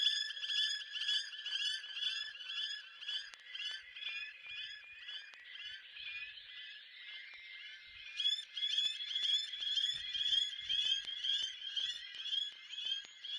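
Small birds calling in a fast, even run of short chirps, about four a second, each made of several stacked tones. The chirping thins out in the middle and comes back fuller about eight seconds in.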